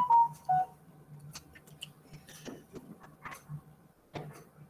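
The last notes of a short electronic notification chime, a few clean tones stepping down in pitch and ending about half a second in. Faint scattered clicks and a low hum follow.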